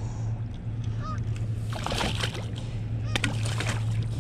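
Geese honking a few times over a steady low hum, with a splash about two seconds in as a hooked striped bass is brought alongside the kayak, and a few sharp clicks a little later.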